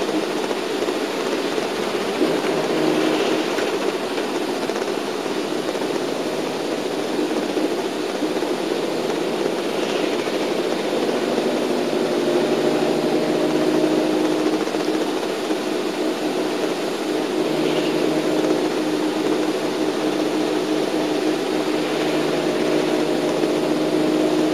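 Shuttle bus engine running and tyre noise on the road, heard from inside the cabin while driving: a steady drone.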